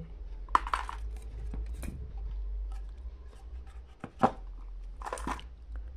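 Handling noises of small parts on a workbench: scattered scrapes and clicks, with one sharp click about four seconds in, over a steady low hum.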